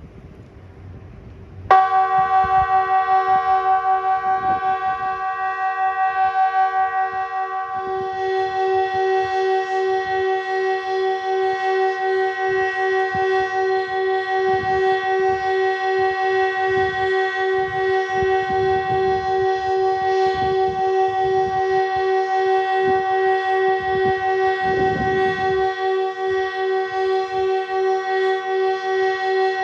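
Kockum Sonics ET 751 electronic civil-defence siren switching on suddenly about two seconds in and then holding one steady, unbroken multi-tone note with a fast, even pulsing in it. The long continuous tone is the pattern of Sweden's all-clear signal. Low gusts of wind rumble on the microphone underneath.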